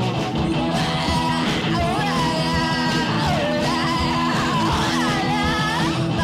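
Garage punk rock song: distorted electric guitar, bass and drums playing steadily, with a voice singing over them from about a second in.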